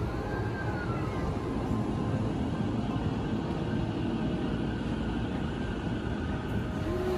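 E231-series electric commuter train pulling out of the platform and moving off, a steady rumble of wheels on rails with a faint electric whine.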